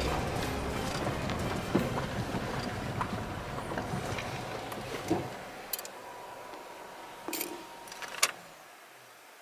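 Car driving on a gravel forest road, a steady low rumble that dies away about five seconds in as the car comes to a stop. A few sharp clicks and a short thump follow.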